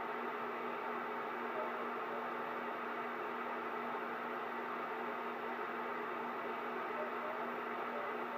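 Cobra CB radio receiver putting out open-channel static: a steady rush of hiss through its speaker with a low steady hum underneath.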